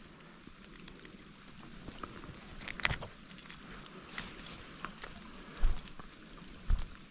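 Metal crankbait treble hooks jingling and clicking in irregular bursts while a bass is unhooked, with two dull thumps about a second apart near the end.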